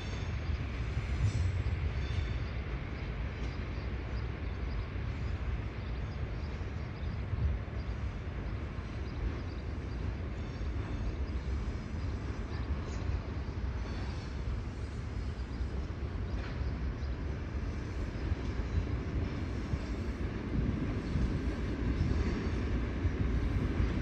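Steady low rumble of an arriving ED4M electric multiple unit, growing louder near the end as the train draws closer.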